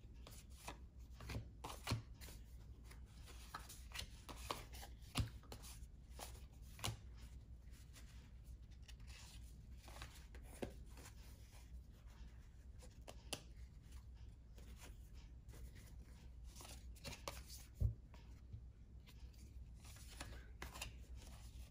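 1991-92 Fleer basketball trading cards handled by hand, flipped and slid onto piles: soft rustles and scattered light taps, a few of them sharper.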